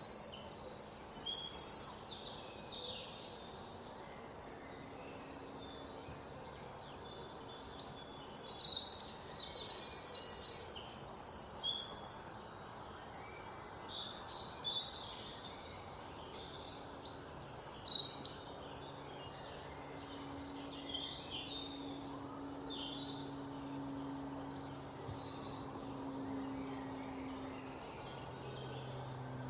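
Birds chirping in quick, rapidly repeated high notes. The chirping is loudest at the start, again from about eight to twelve seconds in, and briefly around eighteen seconds, with fainter calls in between.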